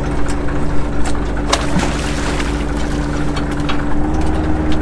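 Fishing boat's engine and hydraulic longline hauler running with a steady hum, with scattered sharp clicks over it as the longline is hauled in. The hum rises slightly near the end.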